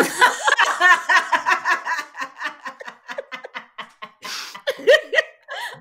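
Women laughing hard: a fast run of short laugh pulses for about three seconds, then a breathy gasp and a few more bursts of laughter.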